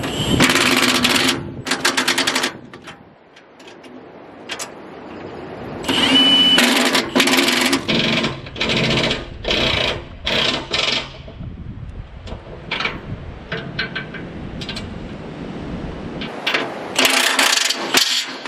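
Milwaukee cordless impact gun hammering as it drives the bolts that mount bucket hooks on a tractor's loader bucket. There are two long runs at the start, a string of short bursts in the middle, and another run near the end.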